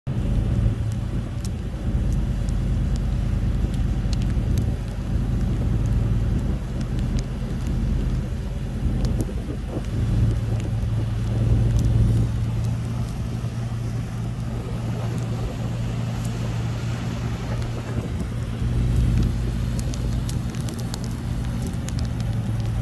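A vehicle being driven: its engine makes a steady low drone over road noise, with occasional faint clicks.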